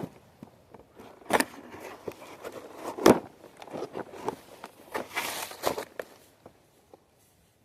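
Packaging being worked open by hand with a tool: scattered rustling and sharp clicks, with a louder crack about three seconds in and a cluster of rustling around five seconds in.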